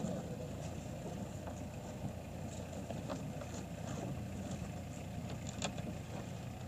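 A compact tractor's engine running steadily, with scattered light clicks and knocks from the load being shifted.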